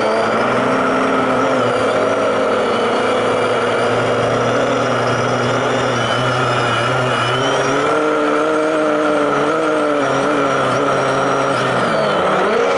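A drone's electric motors and propellers, picked up by its onboard camera. They run loud and steady as a whine and buzz of several tones that waver up and down in pitch as the motor speed changes, over a steady hiss.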